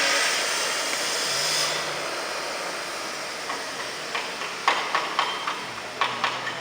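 A loud, steady hiss that fades away over the first two seconds, followed by a handful of sharp clicks or knocks.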